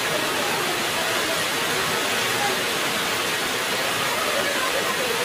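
Heavy rain falling steadily, an even unbroken hiss.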